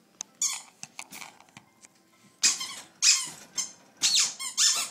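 Squeaky toy being squeezed repeatedly in a pitbull puppy's mouth as it chews and plays: a few short squeaks, then several louder, longer squeaks in the second half.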